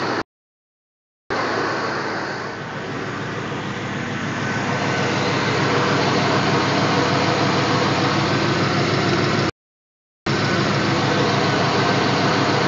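2005 Pontiac GTO's LS2 V8 running steadily through SLP headers and a Corsa Sport exhaust, which the owner suspects is leaking at the headers. The sound cuts out completely twice for under a second.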